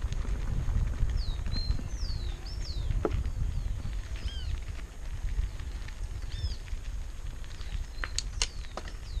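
Mountain bike rolling down a gravel road: low wind noise on the microphone and tyres crunching over the gravel. Birds give short falling chirps again and again, and a couple of sharp clicks come near the end.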